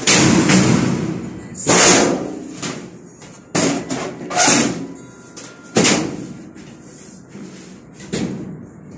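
Sheet-steel cabinet parts banging and clattering as they are handled and fitted together: about six sharp bangs a second or two apart, each trailing off in a short metallic rattle.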